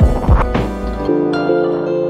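Background instrumental music: two drum beats near the start over a low bass, then held notes from about halfway in.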